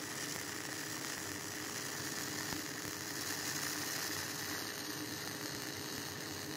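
MIG welding arc on aluminum, burning steadily with an even hiss and buzz.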